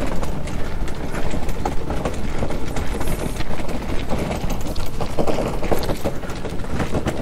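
Footsteps walking at an uneven pace, with wind rumbling on the microphone.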